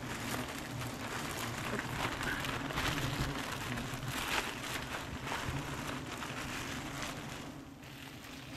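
A large colony of giant honey bees buzzing around its cut-open comb: a dense, steady hum with a crackly rustle over it.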